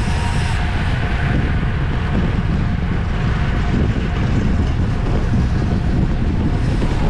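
Steady wind rush buffeting the microphone of a camera on a bicycle at racing speed, with road and bike noise underneath.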